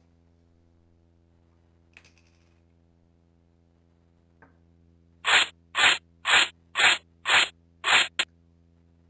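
Braun electric coffee grinder run in short pulses: seven whirring bursts about half a second apart, the last one cut short.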